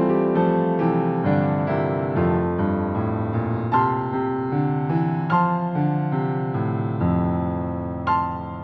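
Background piano music: gentle, slow chords and notes, ending on a held chord near the end.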